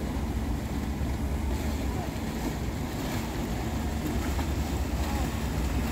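Motor yacht engines running at low speed, a steady low rumble, with wind on the microphone.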